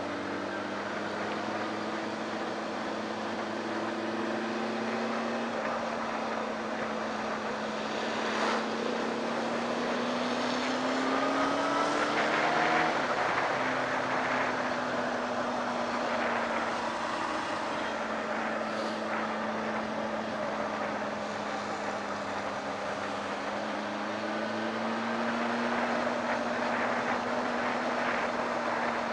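Honda CB600 Hornet's inline-four engine running at a steady cruise under wind and road rush. Its note climbs gradually toward the middle, drops suddenly once, then rises again near the end.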